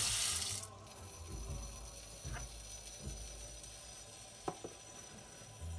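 Tap water pouring into a stainless steel cooking pot in a metal sink. About half a second in the flow is cut back sharply to a thin, much quieter trickle, with a few faint clicks.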